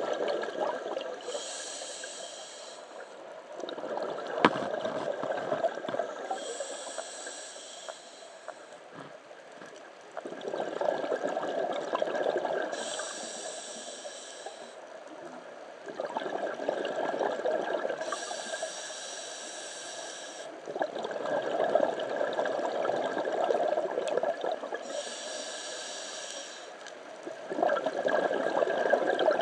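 Scuba diver breathing underwater through a regulator: each inhale is a hiss from the demand valve, and each exhale is a rush of bubbles. The cycle repeats steadily about every six seconds.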